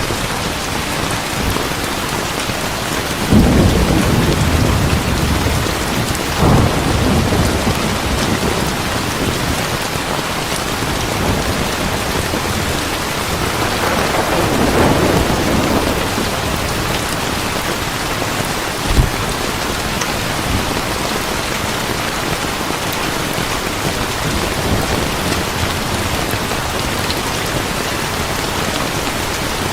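Heavy rain falling steadily, with thunder rumbling several times: short rumbles about three and six seconds in, a longer rolling peal around the middle, and a brief low thud a little later.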